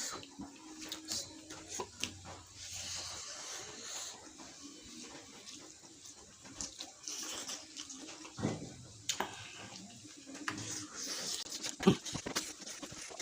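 Wet, close-up eating sounds of a person chewing, sucking and slurping on a spicy fish head, with scattered smacks and small clicks.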